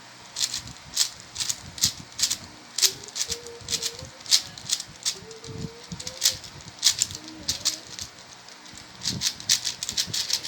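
Rubik's cube being turned fast by hand: its layers click and rattle in quick, irregular runs of snaps, a few a second with short pauses.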